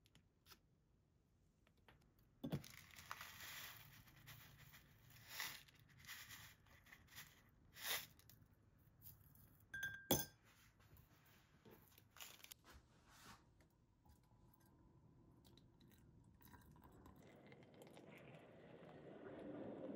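A foil tea sachet crinkled and torn open, with light rustling and clicks, then a stainless mesh tea-infuser ball clinks sharply against a glass cup about ten seconds in. Near the end, water is poured into the glass cup, the pouring sound rising as it fills.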